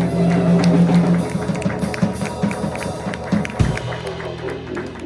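Live rock band playing without vocals: drum kit, bass and guitar over held chords, with a heavy low bass-drum and bass hit about three and a half seconds in.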